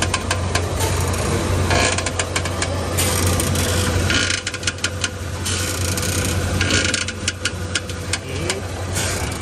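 Proton Satria Neo's front steering making a repeated 'krak krak' creaking and clicking in clusters every second or two as the steering is worked, over the steady hum of the idling engine. The noise comes from a broken steering rack bush.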